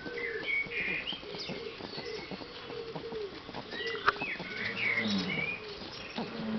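Rabbits chewing barley grass close to the microphone: a quick, continuous run of small crunches, with a sharp click about four seconds in. Small birds chirp in the background several times.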